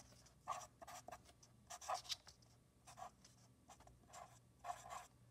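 Marker pen writing on notebook paper: a run of short, faint, irregular strokes.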